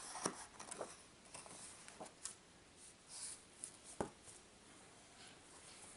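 Faint paper rustles and soft taps as a hardcover picture book is handled and closed, with the clearest tap about four seconds in.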